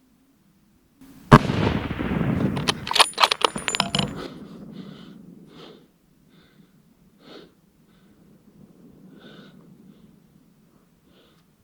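A single rifle shot about a second in, its report rolling away as a long echo over several seconds. A quick run of sharp metallic clicks follows about two seconds after the shot.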